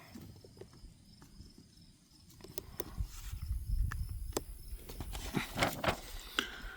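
Faint handling noise: scattered light clicks and rustling over a low rumble, starting about two seconds in.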